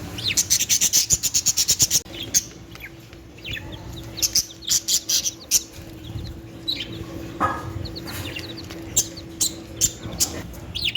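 Small pet birds chirping, budgerigars and chicks together: a fast run of short high chirps in the first two seconds, then scattered chirps. A faint steady hum lies underneath.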